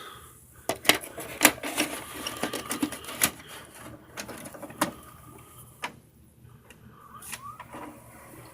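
Irregular sharp clicks and knocks, thick over the first five seconds and sparser after, with a short rising squeak about three-quarters of the way in.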